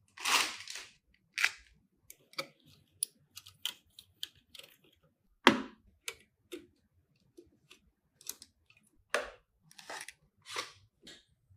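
Irregular clicks, taps and short scrapes and rustles of computer parts and packaging being handled, with two louder scrapes near the start and about halfway through.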